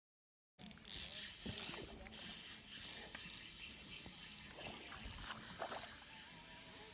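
Quick, irregular mechanical clicks and rattles that start abruptly about half a second in and thin out after about six seconds into a faint steady hiss.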